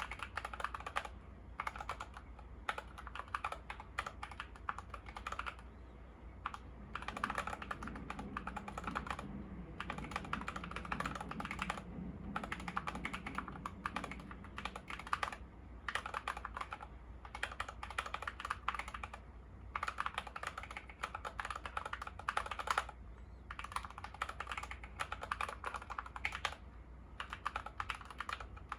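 Fast typing on a YUNZII KC68 mechanical keyboard with lubed Gateron Yellow linear switches and XDA keycaps: dense runs of keystrokes broken by short pauses every few seconds.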